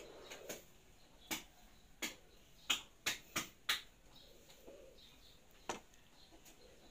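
Hands lightly slapping and patting the face, about eight sharp slaps, several in quick succession in the middle and a last one a couple of seconds later.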